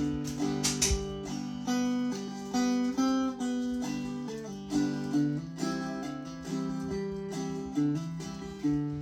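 Gourd banjo in open G tuning (gDGBD) played clawhammer style: a slow, simple bum-ditty rhythm of single struck melody notes followed by brushed strums, in an even beat.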